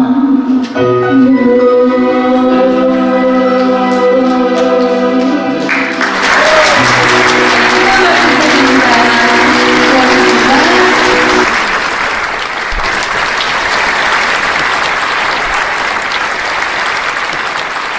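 Trot backing music holds its closing chord. From about six seconds in, an audience applauds over it. The music fades out under the clapping a few seconds later, and the applause carries on alone.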